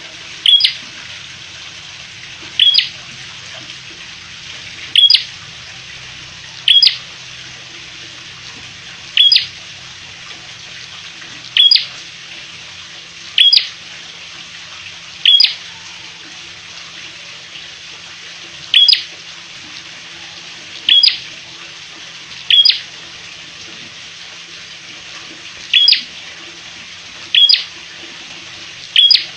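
Caged prenjak kepala merah, a small rufous-headed songbird, giving a short, sharp call about every two seconds, some fourteen times. Behind it runs the steady hiss and low hum of an electric fan.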